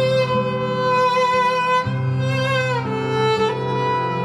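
Solo viola layered through a loop pedal. A low looped note is held under a higher bowed melody line with vibrato; the low note re-enters about two seconds in, and the melody slides down to a lower note about three seconds in.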